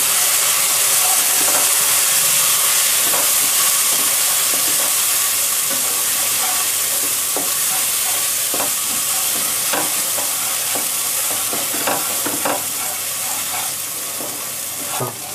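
Spice masala of onion, garlic, ginger and tomato paste with ground spices sizzling in oil in a nonstick frying pan, stirred and scraped with a spatula in short knocks over a steady sizzle. The masala is frying down dry, close to the point where it could burn, and the sizzle eases a little toward the end.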